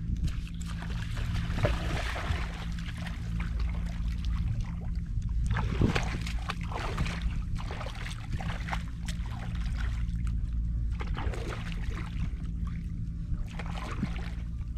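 Water splashing and lapping irregularly against a small inflatable boat, over a steady low hum.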